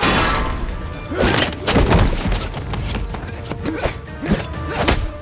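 Movie fight sound effects over an action score: a run of sharp punch and kick impacts, with a rattling metal crash at the start as a man is slammed into a chain-link fence, and short grunts and shouts between the blows.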